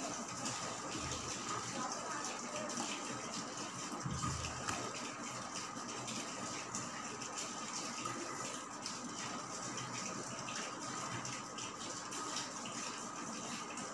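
Steady rushing hiss with faint, repeated snips of green vegetable stalks being cut on a bonti, a curved kitchen blade fixed upright on a floor board.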